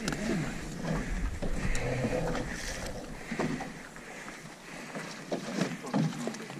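A drift gillnet being hauled into an aluminum skiff: wet mesh, lead line and plastic floats rustle and knock against the hull in scattered small clatters. A low wind rumble on the microphone drops away about halfway through.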